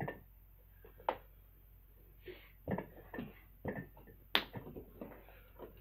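Short irregular clicks and knocks, roughly one a second, from a person shifting and straining while hanging upside down on a metal inversion table. The sharpest and loudest click comes a little past four seconds in.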